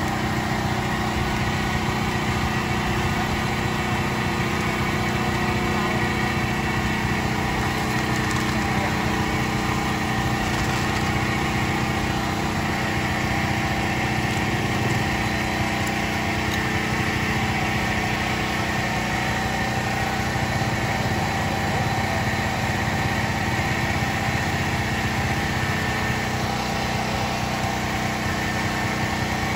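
Small engine running steadily at a constant speed, an even hum with no change in pitch.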